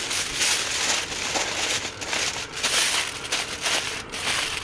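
Aluminium foil crinkling and rustling unevenly as gloved hands fold it and press it down into a wrap.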